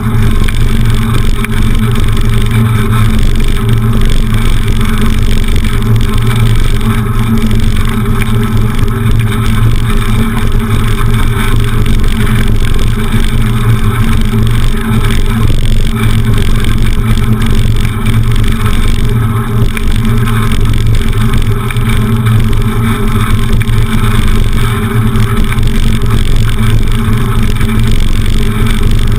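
Steady ride noise of a beach cruiser bicycle picked up by a handlebar-mounted camera: wind on the microphone and the tyres rumbling over stone paving, under a constant drone.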